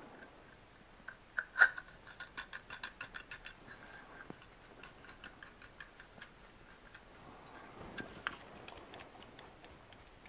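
Faint metallic clicks of a steel gas block sliding along an AR-15 barrel and being turned to seat over the gas port, with a quick run of even ticks, about six a second, between about one and a half and three and a half seconds in, and a few more clicks near the end.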